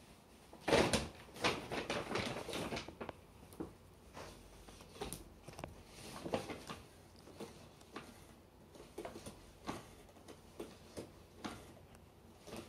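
Paper bag rustling and crinkling as a cat plays at it with a teaser: a dense run of scratchy rustles about a second in, the loudest part, then scattered light scratches and taps.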